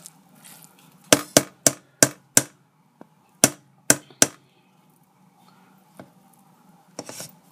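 Wooden spoon knocking against the inner pot of an Aroma rice cooker while stirring rice and vegetables: eight sharp knocks, five in quick succession about a second in, then three more about two seconds later.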